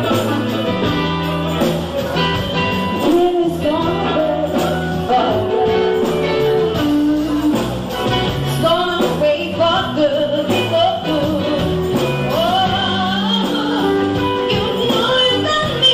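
Live blues band playing: a woman singing over electric bass, guitar and drums with cymbals.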